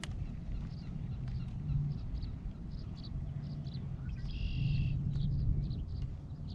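Wind rumbling on the microphone, with birds chirping in short repeated notes and one longer call about four seconds in.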